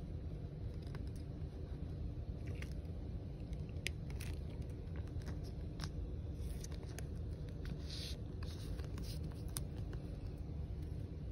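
Trading cards and a thin plastic card sleeve being handled: scattered light crinkles and small clicks over a steady low hum.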